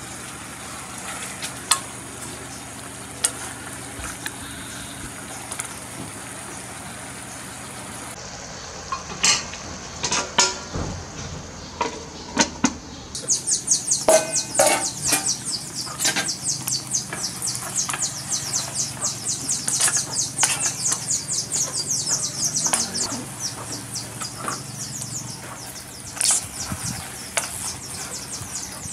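Metal spoon clinking and scraping against an aluminium stockpot while stirring a braised pig head in thick sauce, over a steady sizzling hiss. From about halfway, a fast, dense high ticking joins in.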